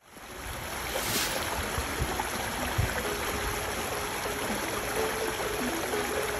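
Small rocky creek running, a steady rush of water spilling over stones, fading in over the first half-second.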